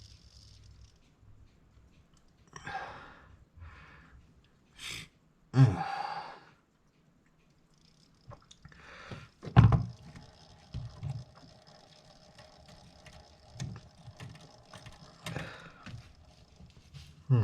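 Hands working on a mechanical clock movement: scattered clicks and rustles, and one sharp knock about halfway through. It is followed by a faint steady hum that stops near the end.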